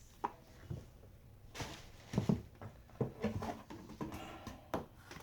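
Handling noises as items are picked up and set down: a scattering of light knocks and rustles, the clearest about two seconds in and near the end.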